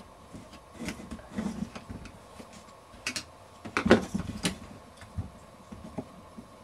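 Irregular knocks and clicks of hands working a fan belt onto a compressor's pulleys, with the loudest knock about four seconds in.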